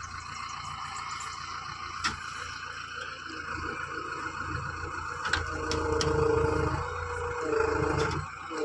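JCB 3DX backhoe loader's diesel engine running steadily. A steady whine joins about five seconds in and fades near the end, with a few sharp clanks.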